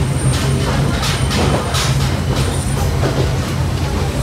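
Cabin noise inside a Kiha 40 diesel railcar: the steady low drone of the running diesel engine, with several short hissing or rattling sounds in the first half.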